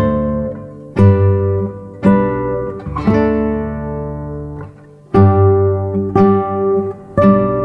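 Background music of plucked acoustic guitar chords, struck about once a second and each left to ring out and fade.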